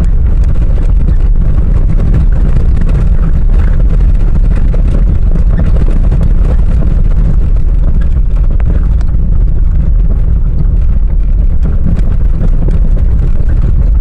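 Volkswagen Voyage driving on a dirt road with loose stones: a loud, steady low rumble of tyres and wind on the microphone, with small stones ticking and crackling under the tyres throughout.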